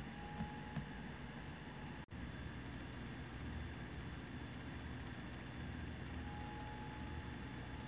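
Faint steady background hiss and hum, with two light clicks about half a second in.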